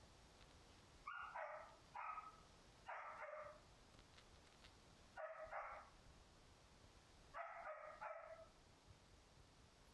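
Dog barking: five short bouts of one or two barks each, spread over about seven seconds.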